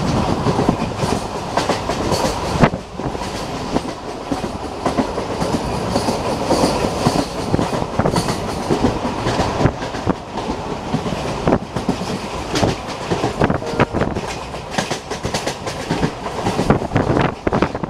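Passenger train coaches running at speed, heard from an open coach window: a steady rushing noise with irregular clicking and clattering of wheels over the rails.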